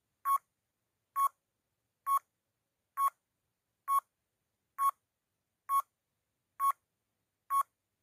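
Countdown timer beeping: nine short, identical beeps about once a second, marking the seconds counting down from nine to one.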